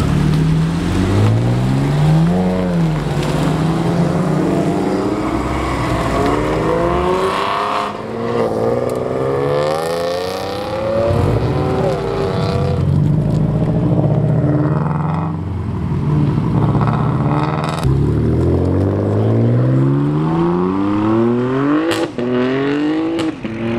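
Sports car engines accelerating hard one after another, each revving up in pitch and dropping back at the gear shifts as the cars pull away.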